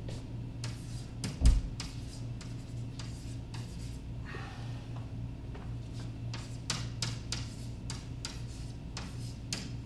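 Chalk writing on a blackboard: a run of short, sharp taps and scratchy strokes as figures are written, with one heavier thump about a second and a half in. A steady low hum runs underneath.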